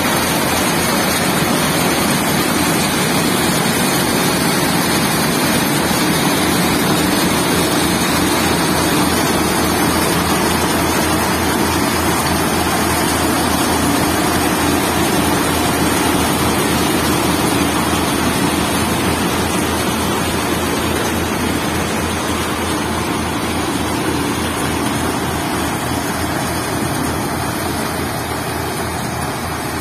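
Tractor-driven Bansal multi-crop thresher running at work as grain pours from its outlet chute, a loud, steady mechanical din with the tractor engine beneath it, easing off a little near the end.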